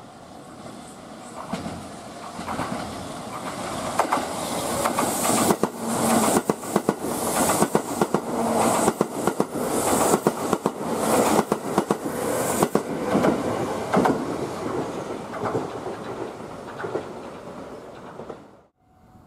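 Kintetsu 21000-series Urban Liner Plus limited express passing through the station at speed without stopping. The rumble rises as it approaches, then comes a rapid run of wheel clacks with a rushing hiss, which fades as it draws away. The sound cuts off suddenly near the end.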